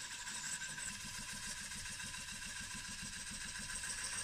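Wood lathe running while a gouge cuts a spinning wooden platter blank: a steady cutting hiss with an even low thump about seven times a second.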